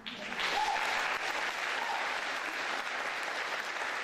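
Audience applauding, starting sharply, building within half a second and then holding steady.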